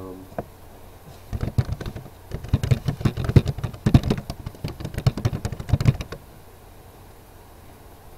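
Typing on a computer keyboard: a quick, irregular run of key clicks that stops about six seconds in.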